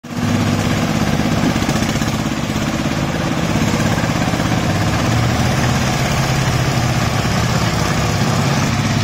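Engine of a small tracked mini dumper running steadily while its skip tips concrete.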